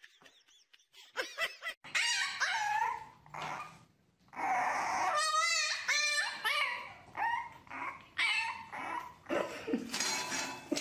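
Puppy whining and yipping in a run of short high-pitched cries, some wavering in pitch, starting about two seconds in.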